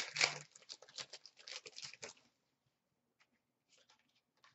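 Crinkling and rustling of trading cards and their foil pack wrapper being handled, for about two seconds. Then it goes almost silent, with a few faint ticks.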